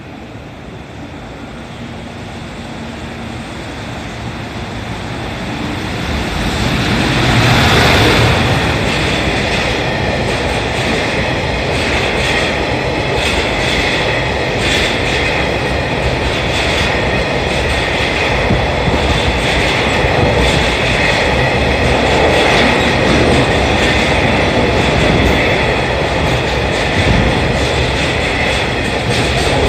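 EF210 electric freight locomotive hauling a train of tank wagons through the station at speed: a rising rumble as it approaches, loudest as the locomotive passes about eight seconds in, then the steady rumble and clickety-clack of the tank wagons' wheels over the rail joints, with a high whine over it.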